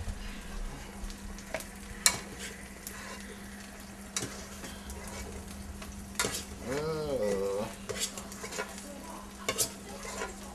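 Food sizzling in a frying pan while a utensil stirs and scrapes it, with sharp clicks and taps against the pan now and then, the loudest about 2 s in. A steady low hum lies underneath, and a short wavering tone sounds a little past the middle.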